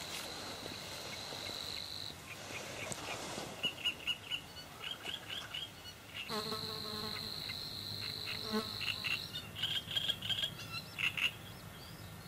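Pond-side wildlife: a steady high-pitched insect buzz for the first two seconds and again from about six to nine seconds in, with a frog croaking in a rapid rattle under the second buzz, and short high chirps in between and near the end.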